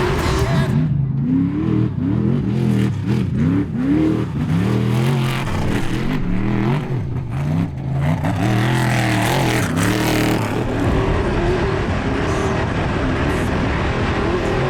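Unlimited trophy truck engine revving hard at race pace, its pitch rising and falling over and over as the throttle is worked, then holding steadier for the last few seconds.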